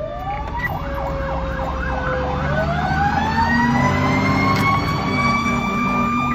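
Fire engine's sirens running while responding: one siren climbs in pitch about two seconds in and holds a high steady wail, while a second siren sweeps rapidly up and down. The truck's engine rumbles underneath.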